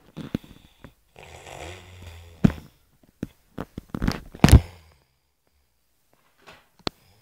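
Snoring: one long, buzzing snore about a second in, followed by a run of sharp knocks and thumps, the loudest about four and a half seconds in, and a short click near the end.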